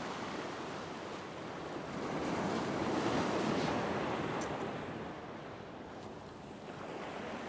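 Ocean surf breaking and washing against the jetty's boulders, a steady rush that swells about two seconds in and eases off after about five seconds.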